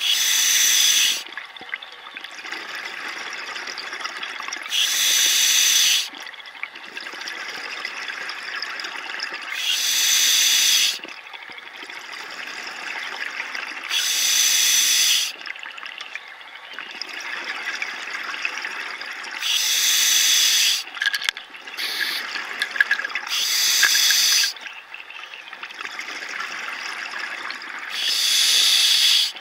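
A scuba diver breathing through an open-circuit regulator underwater. Seven loud rushes of exhaled bubbles come about every four to five seconds, each lasting about a second, with a quieter hiss between them.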